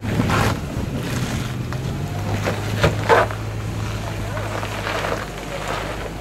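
Toyota Land Cruiser 80-series engine running steadily at low revs as the SUV crawls over a rock ledge, with wind buffeting the microphone and a few short, sharper noises about three seconds in.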